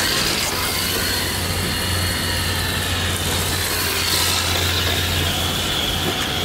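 Electric motor of a 1:10 scale HSP Flying Fish RC drift car whining, the high pitch rising and falling as it accelerates and slides across paving stones. A steady low hum runs underneath.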